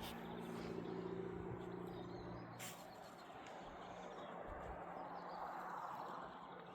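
Faint outdoor ambience: a steady soft hiss with a faint low hum over the first few seconds and two soft clicks.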